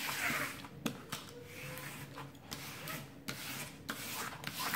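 Hands and a small scraper rubbing the protective sheet flat over a diamond painting canvas, chasing out trapped air. It sounds as an uneven run of dry swishing strokes with a few light clicks.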